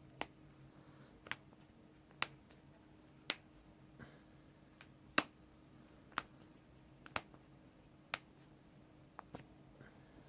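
Joints being cracked by hand: a series of about ten sharp single pops, roughly one a second, some louder than others.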